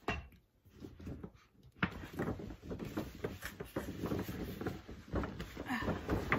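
Gift packaging being handled and opened: a click, then from about two seconds in a steady run of rustling and light knocks.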